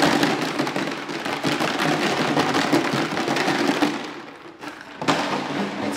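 Plastic rattle jug rattling loudly as it is shaken and moved on the floor, a dense clatter that eases off about four seconds in and then starts again. The rattle is meant as a stressor in a puppy nerve test, mixing stress with prey movement.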